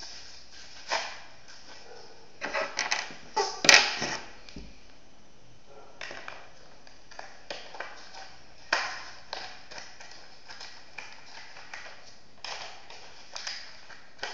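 Homemade cardboard rifle with plastic parts being handled and worked: a run of clicks, taps and rubbing of cardboard and plastic, with a cluster of clicks a few seconds in and the sharpest click about four seconds in.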